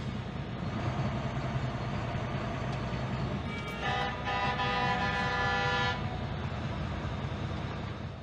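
Heavy truck's engine running steadily in the cab. About four seconds in, a vehicle horn sounds a steady chord of several tones for about two seconds, then stops.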